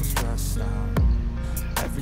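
Background music with a steady beat: deep kick-drum hits about once a second that slide down in pitch, with sharp percussion hits and held synth tones between them.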